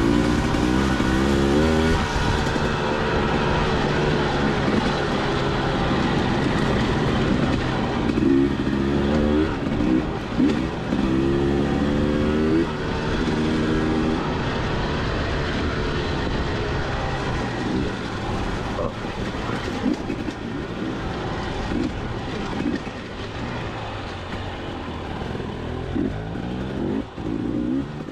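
Dirt bike engine being ridden, its revs rising and falling again and again with the throttle over a steady rush of noise. It is somewhat quieter in the second half.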